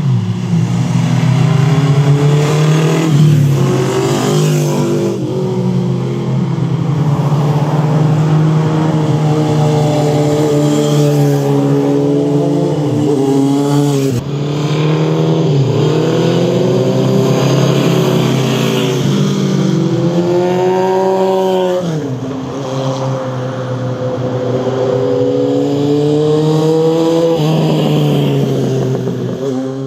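Honda CB750 Four's air-cooled inline-four engine under way, its pitch repeatedly climbing as it accelerates and dropping back at each shift or throttle-off. There is an abrupt break about 14 seconds in.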